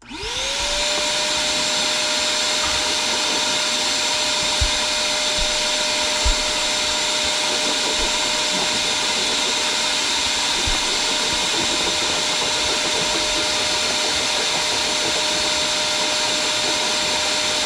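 Vacuum cleaner switched on, its motor spinning up within about half a second to a steady high whine and running steadily while it picks up dust, with a few light knocks of the nozzle along the way.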